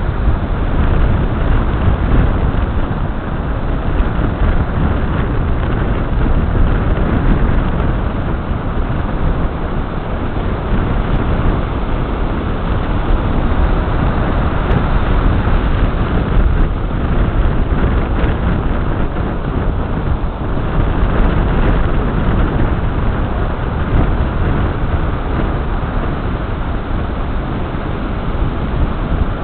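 Ocean surf breaking and washing up onto a sandy beach: a steady, loud rush of noise, strongest in the low rumble, that swells and eases slightly with the waves.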